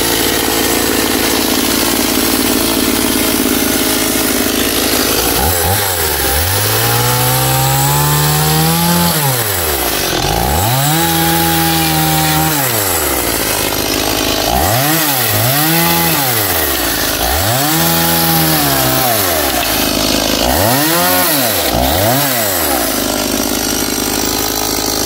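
Chainsaw engine running loudly, revved up and dropped back about six times from about five seconds in.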